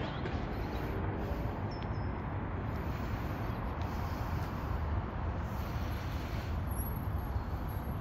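Steady low rumble of distant city traffic, even throughout with no distinct events.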